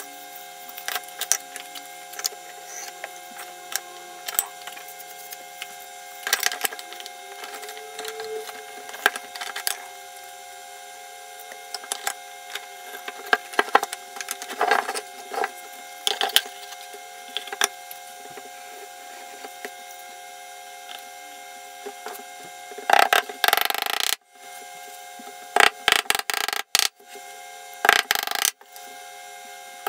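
Thin plywood panels knocking and clattering on a wooden workbench as they are handled and fitted together, over a steady hum. Near the end, a hammer taps small nails into the plywood, in louder clusters of knocks.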